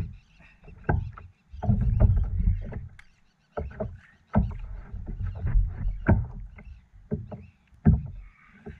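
Irregular knocks, thumps and splashing as a hooked fish is reeled in and landed.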